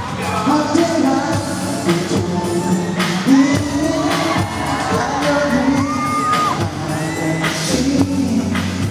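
Live pop music over a large hall's sound system: a male singer's voice over backing music with regular drum hits, heard from the audience.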